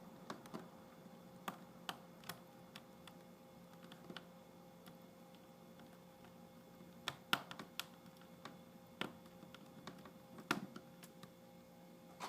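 Scattered small clicks and taps of a screwdriver and plastic laptop parts being handled while a laptop is put back together, over a faint steady hum.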